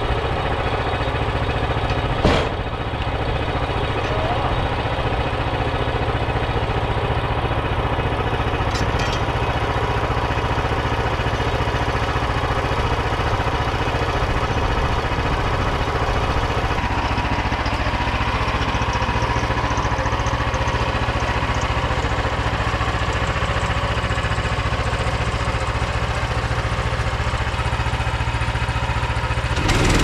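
Small petrol engine of a portable bandsaw mill running steadily at idle. A single sharp knock comes a couple of seconds in.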